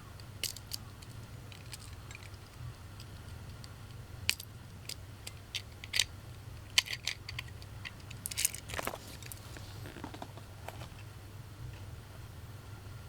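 Small hard objects being handled: scattered sharp clicks and short light rattles, most of them between about four and ten seconds in, over a low steady hum.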